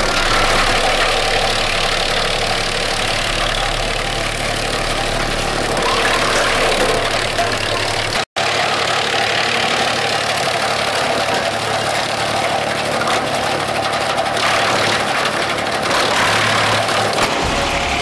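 Disc wood chipper running as branches are fed into it, a loud steady mechanical din of the machine chipping wood, cut by a split-second gap about eight seconds in.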